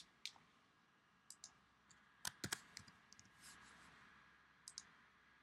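Faint typing clicks, a dozen or so short sharp clicks spread unevenly, the loudest pair a little past two seconds in.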